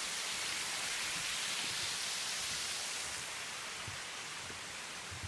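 Water pouring over a concrete spillway edge: a steady rushing and splashing that drops slightly in level after about three seconds.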